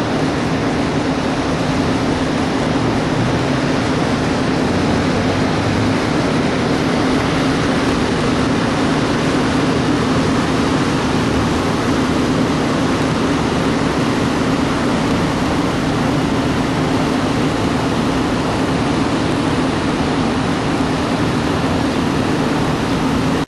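Steady road and engine noise of a vehicle driving along, a constant rushing with a low hum that doesn't change.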